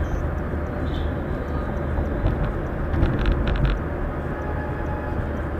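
Steady road and tyre noise with a low engine hum from a car driving at expressway speed, heard inside the car. A short run of clicks or rattles comes about three seconds in.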